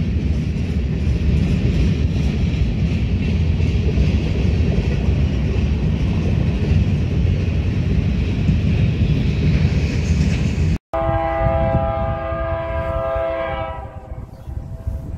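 Freight cars of a BNSF manifest train rolling past on the rails, a steady heavy rumble with high wheel-on-rail noise. Near the end the sound cuts to an approaching BNSF locomotive's air horn, several notes at once, held for about three seconds and then fading.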